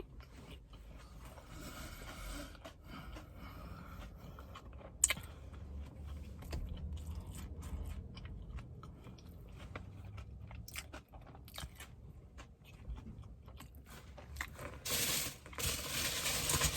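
A person chewing and biting crunchy food close to the microphone, with small crackles and crunches. About fifteen seconds in, a louder steady hiss begins.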